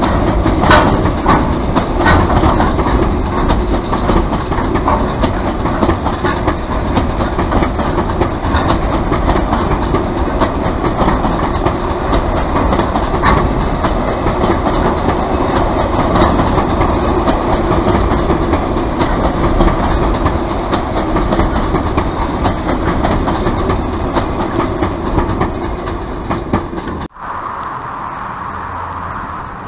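Freight train of bogie aggregate hopper wagons rolling steadily past, wheels clattering over the rail joints, with sharp clicks in the first couple of seconds. The sound cuts off abruptly near the end, leaving a quieter steady background.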